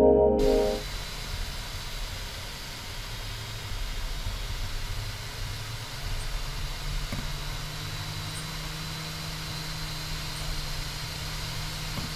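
Ambient synth music cuts off about a second in, leaving a steady low rumble and hiss. A steady low hum joins about seven seconds in.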